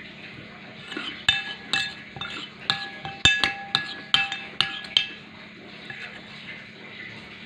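Metal spoon clinking against a ceramic plate, about ten quick ringing clinks between one and five seconds in, as peanut sauce is scooped over chicken satay.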